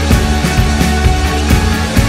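Music with a steady drum beat, about two strikes a second, over a heavy bass line and sustained notes.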